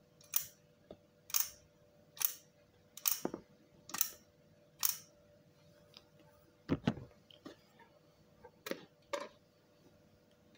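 Shutter of a Bencini Relex 127 film camera being fired over and over, six sharp metallic clicks about a second apart. A dull knock from handling the die-cast aluminium body follows, then two more clicks close together near the end.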